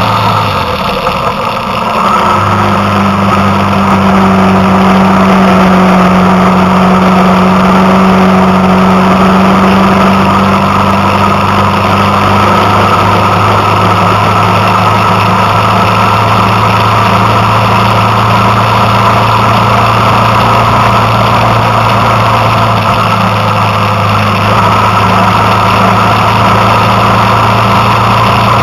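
Vehicle engine running at a steady pace while driving, easing off briefly about a second in, then pulling again.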